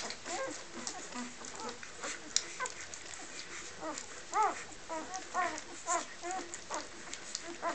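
Three-day-old puppies suckling from their mother, giving many short high squeaks and whimpers that rise and fall in pitch, with small clicks between them.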